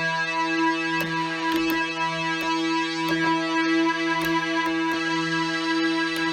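Roland JX-3P analogue synthesizer holding a steady note whose level swells and fades slowly, with scattered sharp clicks from about a second in.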